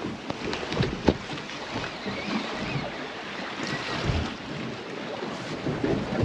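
Wind buffeting the microphone and sea water slapping against a small boat's hull, with a few light knocks, the sharpest about a second in.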